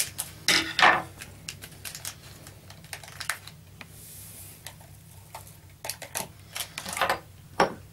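A small paper dry-yeast sachet being handled, opened and shaken out over a ceramic cup: scattered crinkles and short sharp ticks, several of them close together in the last couple of seconds.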